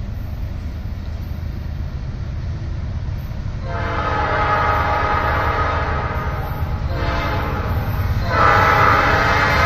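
Norfolk Southern diesel locomotive's multi-chime air horn on an approaching train: one blast about four seconds in lasting about three seconds, then a second, louder blast starting near the end, over a steady low rumble.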